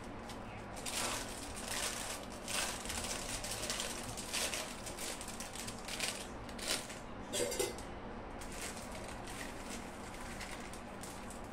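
Aluminium pot of water heating on a gas burner, giving off irregular soft crackles and hisses about once a second as the water warms. A brief squeak comes about two-thirds of the way through.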